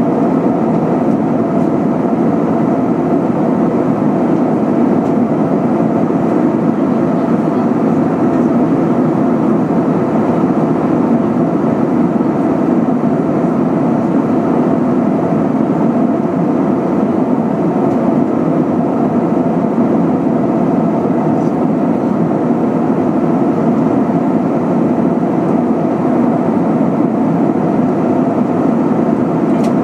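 Steady in-flight cabin noise of an Airbus A320-232 heard from a passenger seat: an even, unchanging hum of its IAE V2500 engines and the air rushing past the fuselage, with a few faint steady tones.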